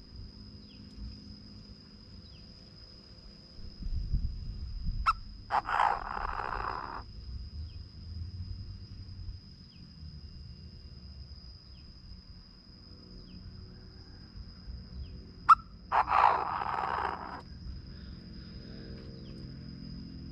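Chinese francolin calling: two loud, harsh call phrases about ten seconds apart, each lasting about a second and a half and each preceded by a sharp click. A steady thin high tone runs underneath.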